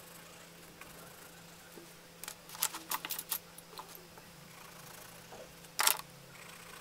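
Coloured pencils clicking and clattering as they are set down and picked up among other pencils and markers: a quick run of light clicks about two to three seconds in, then one louder clack near the end, over a faint steady hum.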